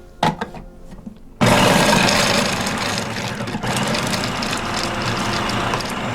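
Electric kitchen grinder chopping walnuts: a click, then about a second and a half in the motor starts abruptly and runs loud and steady.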